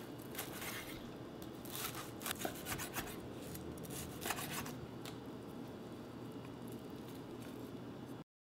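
Chef's knife slicing through a crispy pan-fried kale pancake (kale-jangtteok) on a wooden cutting board: a run of short crunching cuts and light knocks of the blade on the board over the first five seconds or so.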